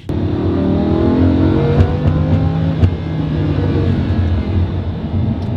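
Lamborghini Huracán's V10 engine accelerating hard, starting suddenly and loud, its pitch climbing, then dropping back and climbing again.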